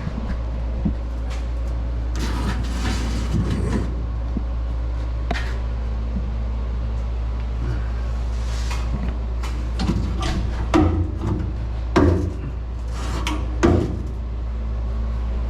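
A steady low hum runs throughout, with rustling and a few sharp knocks, three of them louder in the last few seconds.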